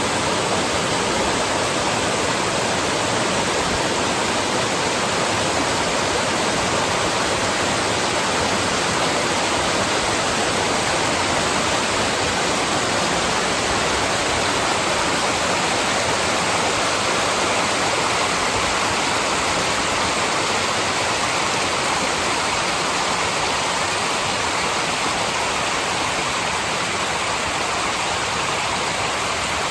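Mountain stream rushing steadily over rocks, a continuous, even wash of water.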